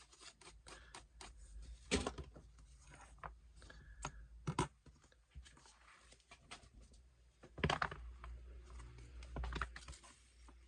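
Irregular light clicks and scratching of hand work as thermal paste residue is brushed off a laptop's CPU and heatsink, with a few louder knocks about 2, 4.5, 7.5 and 9.5 seconds in.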